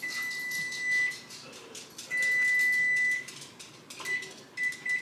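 An electronic beeper sounds one steady high tone in two long beeps of about a second each, then two short beeps near the end, over light kitchen clatter.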